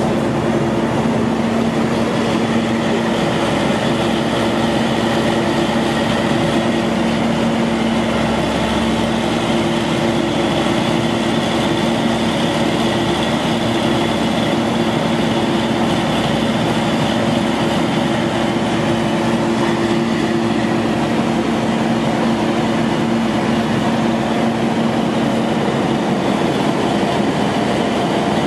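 Sandvik Tamrock Titon 600 DTH drill rig running steadily during a function test: its engine and machinery keep up a loud, even drone with a steady hum.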